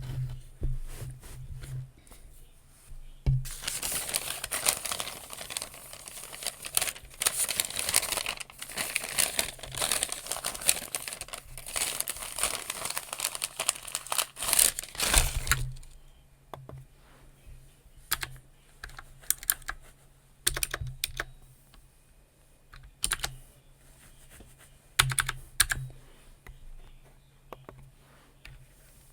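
Typing on a computer keyboard: a long run of fast, continuous keystrokes for about twelve seconds, then slower, scattered key presses.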